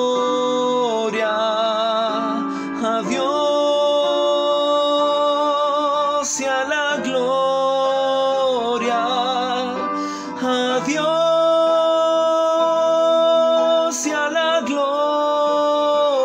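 A man singing long held notes with vibrato, over a sustained instrumental backing.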